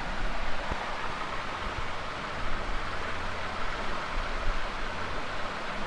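Onion and garlic paste frying in hot mustard oil in a kadhai, a steady sizzle as it is stirred with a spoon.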